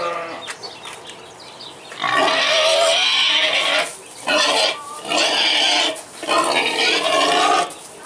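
A boar giving four loud, harsh calls, each about a second long, starting about two seconds in: a hungry pig calling for its food.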